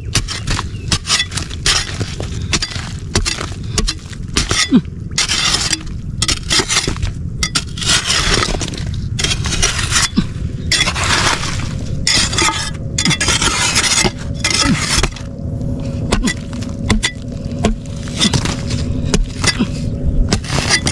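Digging into the ground: an irregular run of scraping and chopping strikes, one after another.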